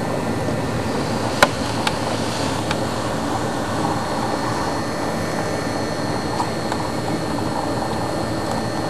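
Steady rush of wind on the microphone in a snowstorm, with one sharp click about a second and a half in.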